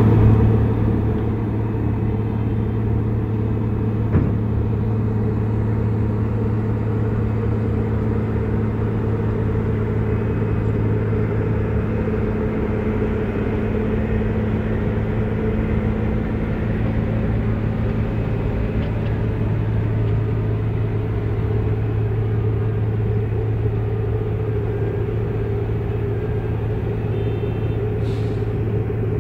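Wirtgen 2 m cold milling machine running steadily under load as it mills road pavement 200 mm deep: a constant heavy drone with a strong low hum. There is a single brief knock about four seconds in.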